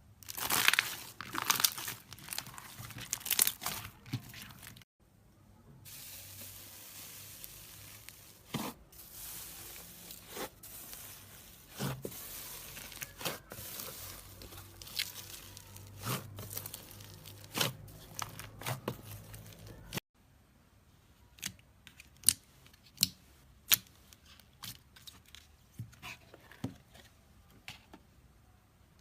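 Slime being handled, crackling and tearing, with sharp pops and clicks. It comes in three stretches split by abrupt cuts, about 5 and 20 seconds in; the last stretch is mostly single sharp pops.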